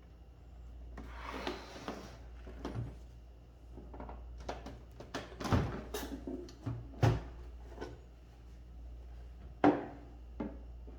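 Irregular mechanical clicks, clunks and knocks from an Olympia Traveller de Luxe S portable typewriter being handled, with a brief sliding rub about a second in and a sharp knock near the end.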